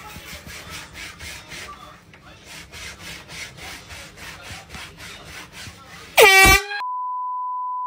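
Repeated rubbing strokes of someone cleaning. About six seconds in, a handheld air horn gives one short, very loud blast, followed by a steady censor bleep of about a second.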